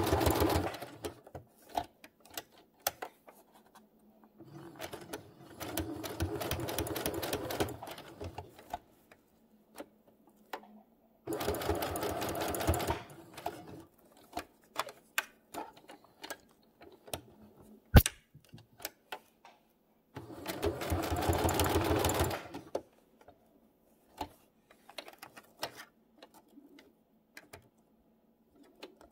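Electric sewing machine stitching in four short runs, each a few seconds long: at the start, and about five, eleven and twenty seconds in. Its needle strokes are rapid and even, as it stitches a Velcro patch onto fabric. Between the runs come small clicks and taps of handling, and one sharp click about eighteen seconds in.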